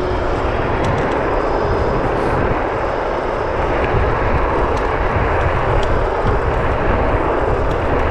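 Steady rush of wind over the microphone, mixed with tyre and ride noise, from an electric scooter (Varla Pegasus) picking up speed downhill. It gets a little louder about halfway through.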